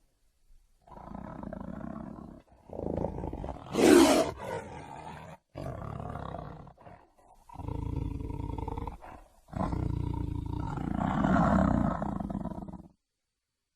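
Tiger roaring: a series of about five drawn-out, low calls broken by short silences, the loudest about four seconds in.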